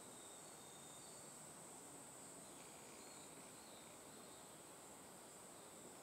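Faint outdoor ambience: a steady high-pitched drone of insects, with a few faint short high notes about a second in and again midway.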